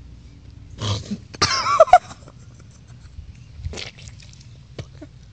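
A person coughing and gagging on a mouthful of dry Crystal Light powder: a short cough about a second in, then a louder, strained, voiced hack, and one more smaller cough near the end.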